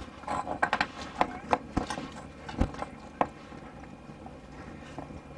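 A run of irregular knocks and clunks for about three seconds, a couple of them low thuds, then they stop.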